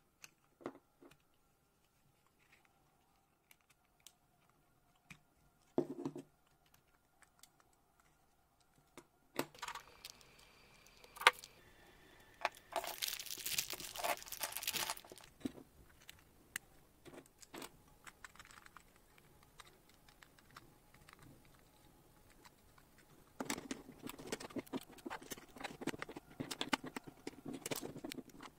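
Hands handling small plastic electronics modules and parts: scattered light clicks and taps, then a small plastic bag of parts crinkling about halfway through, and a stretch of clattering as small plastic parts are handled in a clear plastic box near the end.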